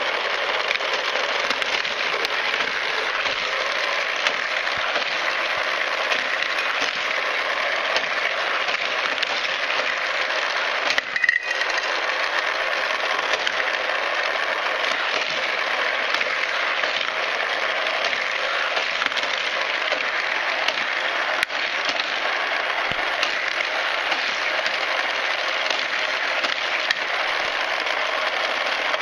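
Battery-powered toy race-track booster units running steadily, their spinning wheels making a constant whirring hum. Small die-cast cars click and rattle around the plastic figure-8 track, with one louder clack about eleven seconds in.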